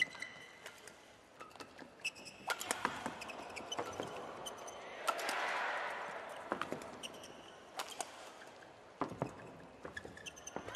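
Badminton rally: sharp racket strikes on the shuttlecock and short squeaks of court shoes on the mat, over a crowd murmur that swells briefly around the middle.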